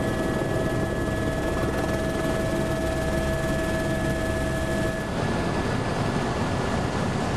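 Helicopter cabin noise from inside the aircraft: a steady drone of engine and rotor with a constant high whine. About five seconds in the sound shifts and the lower of two whining tones stops.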